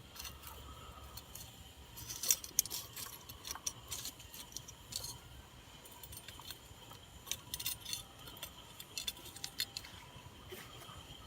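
Wood campfire crackling: irregular, sharp pops and snaps, some in quick clusters, over a quiet background.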